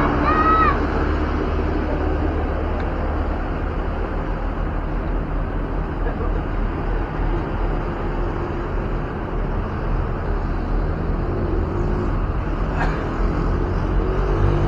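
Roadside traffic noise with a heavy vehicle's engine running, and a telolet musical bus horn sounding a short arching note in the first second. Near the end an engine's pitch climbs as a vehicle speeds up.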